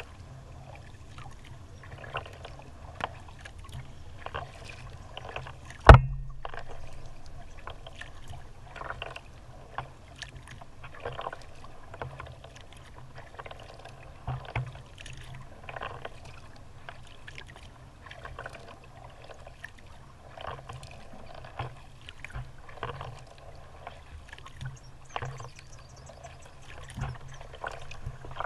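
Kayak paddle dipping into calm water, with splashes and drips every second or so. A single sharp knock about six seconds in is the loudest sound.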